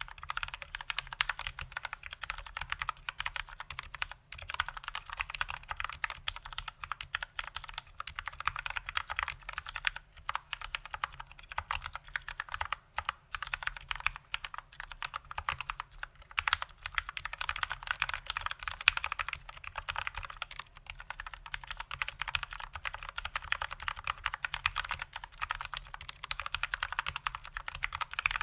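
Continuous fast typing on a GMMK mechanical keyboard with Gateron Brown tactile switches lubed with Krytox 205g0: a dense, unbroken stream of keystroke clacks.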